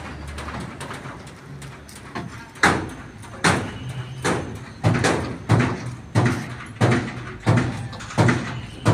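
Regular heavy knocks with a short ringing tail, about three every two seconds, starting about two and a half seconds in.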